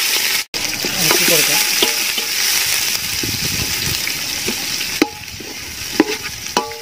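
Sliced onions sizzling as they fry in hot ghee in a large aluminium pot, stirred with a metal spoon that scrapes and clinks against the pot a few times near the end. The sizzle grows quieter about five seconds in.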